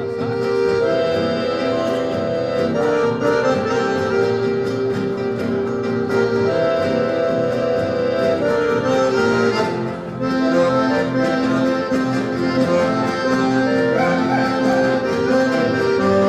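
Accordion playing chamamé, holding sustained chords that change every second or two.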